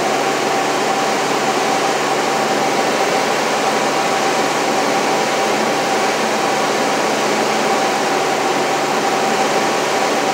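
Steady drone of a light aircraft's engine and propeller inside the cockpit, with a steady high hum running through it.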